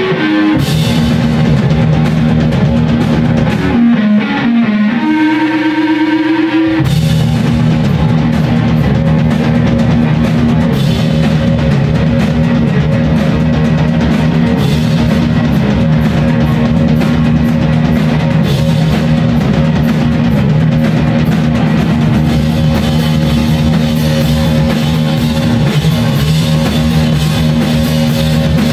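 Live rock band playing loud: electric guitar, bass and drum kit. About four seconds in the band drops out, leaving a single note that bends upward and then holds, and the full band comes back in about seven seconds in.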